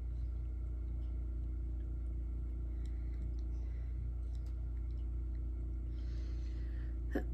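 Room tone: a steady low hum, with a few faint clicks around the middle.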